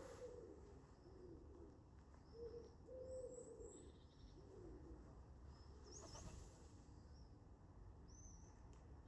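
Faint pigeon cooing, a run of soft low coos over the first five seconds or so. Small birds chirp and whistle briefly and high-pitched above it.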